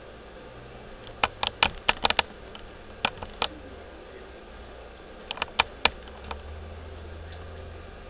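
Sharp clicks in quick clusters: a flurry about a second in, two more around three seconds, and another flurry between five and six seconds. A low steady hum runs beneath them.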